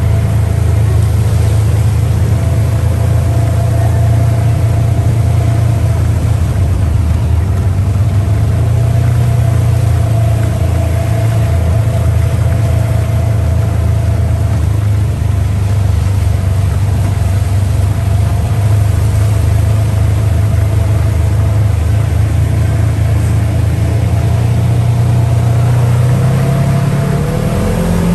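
Off-road buggy's engine running steadily as it drives along, a loud low drone with a steady higher tone over it; near the end the pitch rises as it speeds up.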